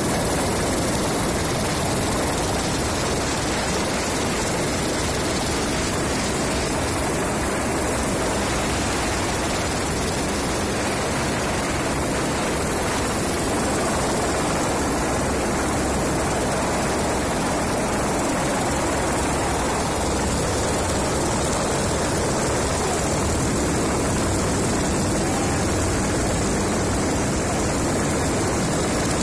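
Aircraft rotor noise from the craft filming overhead: a steady, unbroken whirr with a thin high whine over it.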